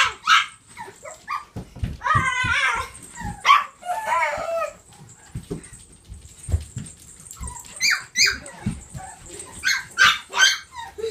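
Several Cavapoo puppies barking and yipping in short, scattered bursts. A high, wavering squeal comes twice in the first five seconds.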